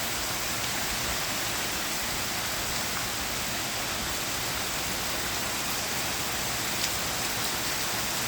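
Heavy rain falling steadily, an even hiss of rain without a break.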